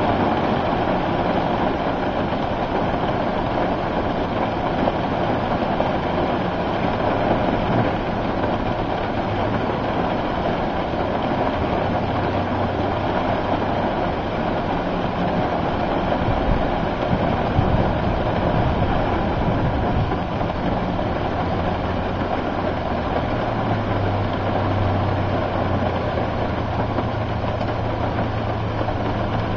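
Steady rushing noise over the low hum of an idling vehicle engine; the hum shifts slightly in pitch a few times.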